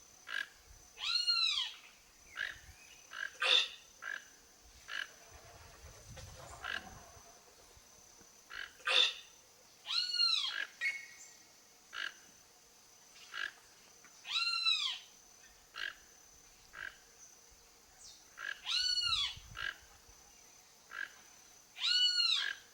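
Toco toucan calling: a series of short croaking calls, each one rising and falling in pitch, about every four seconds, with short sharp notes in between.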